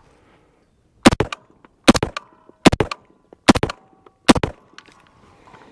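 Five shots from a Sterling Arms R18 semi-automatic .223/5.56 rifle, evenly spaced a little under a second apart. The rifle cycles each round from a plain steel magazine without a stoppage.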